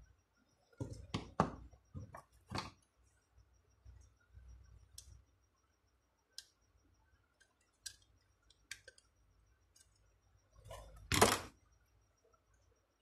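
Scattered clicks and knocks of a screwdriver and small metal parts being handled on a bare alternator. A quick cluster comes in the first three seconds, then a few single clicks, and one louder clatter about eleven seconds in.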